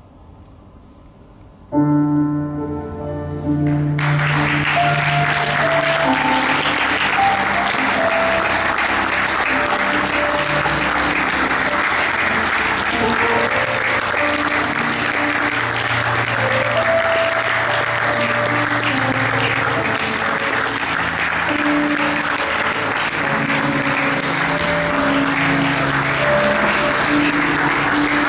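Audience applauding steadily over piano music from the film's score. The music comes in about two seconds in, and the clapping joins about two seconds later.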